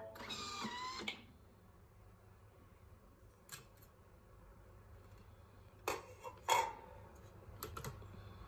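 A Thermomix TM5 ends its run milling raw sugar: a short rising whine in the first second. Then it is quiet apart from light plastic clicks and knocks, the loudest a pair about six seconds in, as the lid is handled and lifted off the steel mixing bowl.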